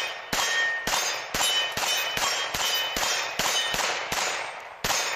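9mm Glock 19 Gen5 pistol fired in a rapid string, about a dozen shots at a little over two a second, with steel targets ringing after the hits.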